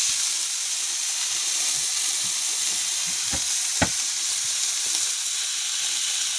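Beef hamburger patties topped with cheese frying on a ridged grill pan over a portable gas stove: a steady sizzle of hot fat, with two sharp pops a little past halfway.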